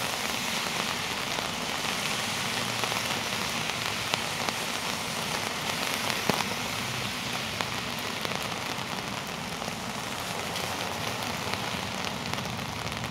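Heavy rain falling, a steady even hiss with occasional sharper ticks of individual drops.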